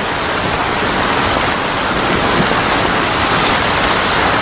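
Heavy rain pouring down steadily, a dense even hiss with no break.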